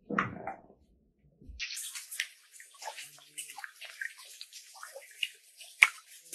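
A short animal sound at the very start, then water splashing and dripping as a beaver moves about in a shallow stream, with a sharp splash a little before the end.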